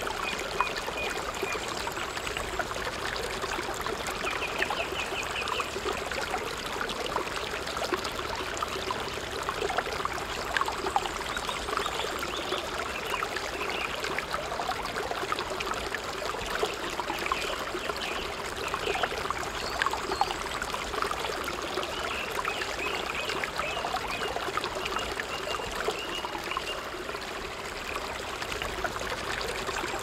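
Stream running steadily over rocks in a small cascade: a continuous rushing and trickling of water.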